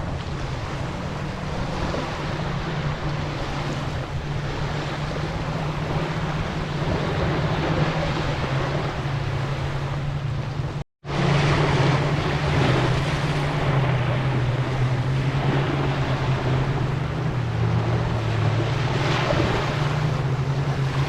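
Sea waves washing with an even rushing hiss, over a steady low hum like an engine running. The sound cuts out for a moment about halfway through.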